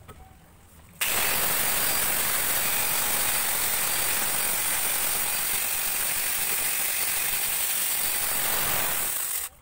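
Electric angle grinder fitted with a mini chainsaw attachment, switched on about a second in and running at a steady speed with its chain spinning free. It cuts off abruptly just before the end.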